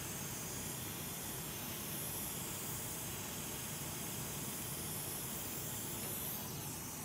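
Hot air rework station blowing at maximum temperature and airspeed: a steady, even hiss of air, preheating a very thick circuit board so its solder can be melted.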